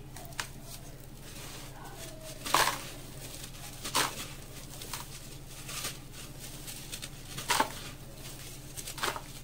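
A sand-cement block crunching and crumbling as it is squeezed and broken by hand over dry sand-cement powder: a handful of short, gritty crunches a second or two apart, three of them louder, over a faint steady hum.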